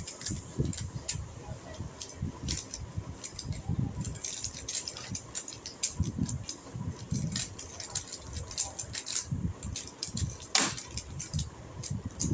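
Two plastic 3x3 puzzle cubes turned fast at the same time: a rapid, irregular clatter of clicks as the layers snap round, with one sharper clack a little over ten seconds in. Soft low thumps run underneath.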